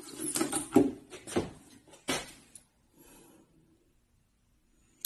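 Metal clicks, knocks and rattles as an M1CB slingshot rifle is cocked: the telescoping pole is pulled back against the rubber bands with the fork held under foot, its tubes clicking into their locking pins. The clicks come in an uneven run over the first two and a half seconds, then the handling goes quiet.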